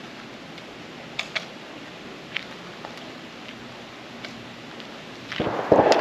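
A few light clicks over a low outdoor background, then a brief, louder rustle of clothing and belt gear near the end as a hand goes to the belt.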